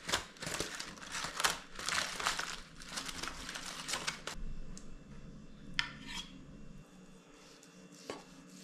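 Aluminium foil crinkling and metal tongs clicking as a foil parcel is handled, a dense crackle for about four seconds. After that only a few light knocks of tongs and knife on a wooden cutting board.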